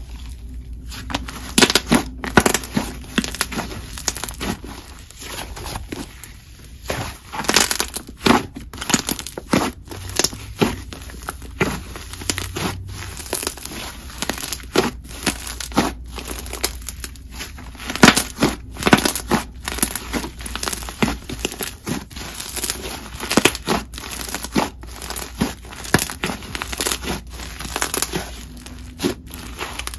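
Thick, chewy white clay slime being stretched, folded and pressed by hand, giving an irregular run of sharp bubble pops and crackles as air pockets burst in it.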